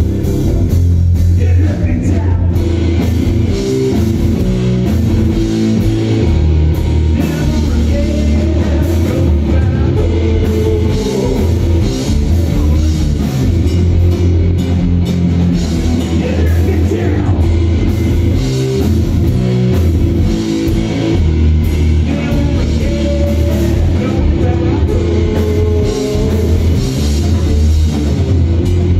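Live rock band playing loud and without a break: electric guitar, electric bass and drum kit.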